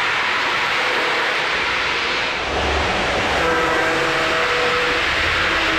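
Lionel Amtrak Acela O-gauge model train running at speed on three-rail track with a steady rush of wheels and motors. Its horn sounds a chord about three and a half seconds in and again near the end.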